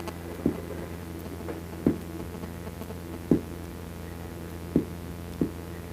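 A steady low hum with short, soft knocks about every second and a half, in a gap between sung lines.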